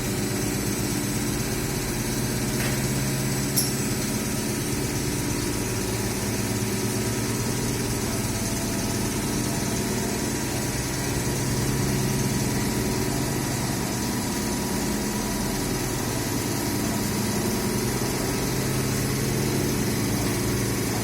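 Steady low drone of an idling engine or running machine, with one sharp click about three and a half seconds in.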